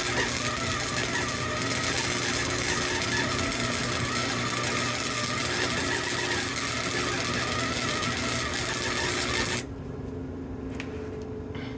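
Flux-core wire welder arc crackling steadily as a bead is laid on rebar. The arc cuts off abruptly near the end, leaving a low hum and a few faint clicks.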